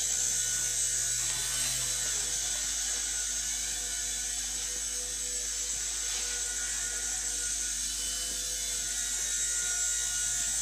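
Small indoor RC helicopter in flight, its motor and rotor giving a steady high-pitched whine.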